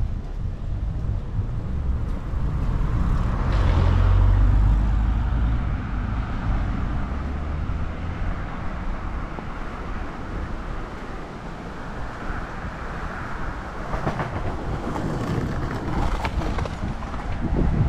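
Street traffic: a motor vehicle's engine rumbles past, loudest about four seconds in, then steady traffic noise continues.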